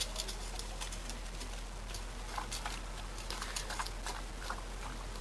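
An old dog making irregular light clicks and taps, a few every second, over a low steady background hum.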